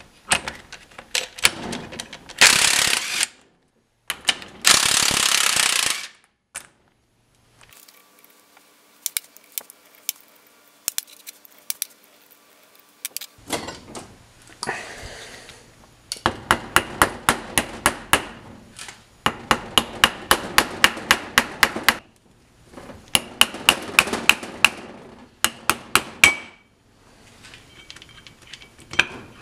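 Impact wrench hammering in repeated bursts of rapid strokes as it undoes the bolts on a BMW differential carrier.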